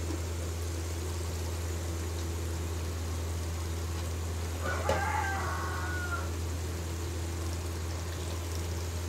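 Chicken curry simmering in a pot with faint bubbling under a steady low hum. About five seconds in there is a brief pitched sound.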